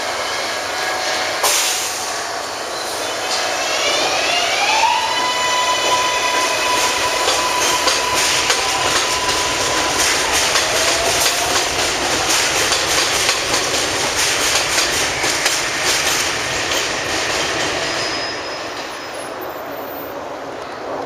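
New York City subway 6 train pulling out of a station. Its motors whine, rising in steps a few seconds in and then holding a steady tone, while the wheels click rapidly over rail joints as the cars speed past. The sound drops lower near the end.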